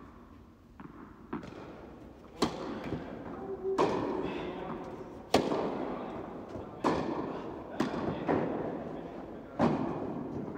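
Tennis rally: rackets striking a tennis ball and the ball bouncing on the court, about six sharp hits roughly every second and a half after a quiet first two seconds, each echoing in the large indoor tennis hall.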